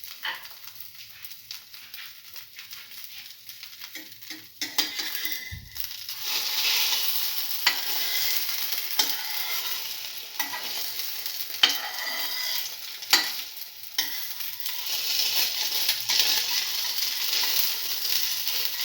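An egg-soaked bread slice sizzling in hot oil in a frying pan. The sizzle grows much louder about six seconds in, and a few sharp clicks come through it.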